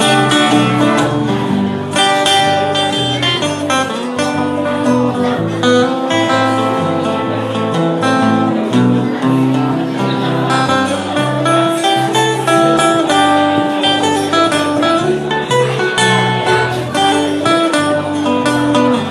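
An acoustic guitar and an electric guitar playing together live, a continuous instrumental passage with no singing.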